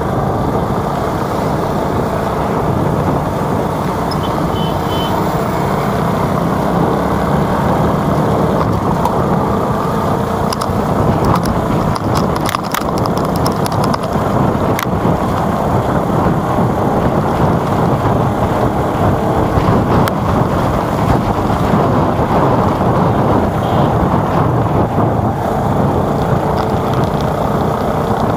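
Steady rumble and hiss of riding along a city street among motorcycles and scooters: engine and road noise. A few short clicks come a little before halfway.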